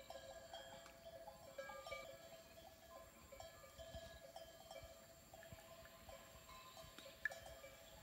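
Faint, irregular clinking of bells worn by grazing cattle, with one sharper clink near the end.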